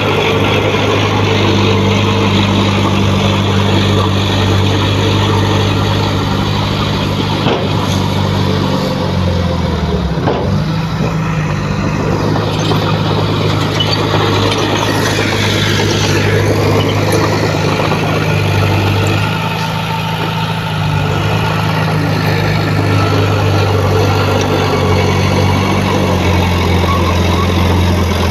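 Heavy diesel engine of earthmoving equipment running steadily, its pitch dipping briefly and coming back up about ten seconds in.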